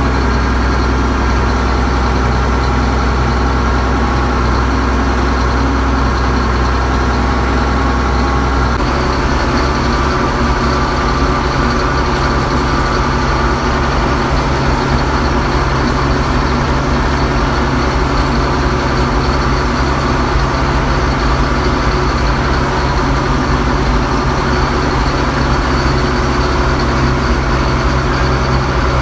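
Allis-Chalmers 210 tractor's six-cylinder diesel engine running steadily. About nine seconds in its note changes to a different engine speed, then holds steady.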